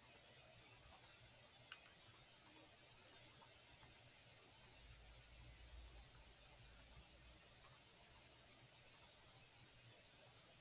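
Faint computer mouse clicks, irregularly spaced and often in quick pairs.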